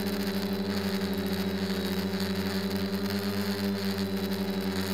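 DJI quadcopter's motors and propellers humming steadily in flight, heard from the microphone on board, with a fast flutter in the hum.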